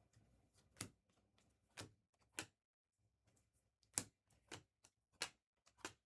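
Trading cards being handled and set down on a table during a pack break: about seven sharp, separate clicks at uneven spacing, half a second to a second and a half apart.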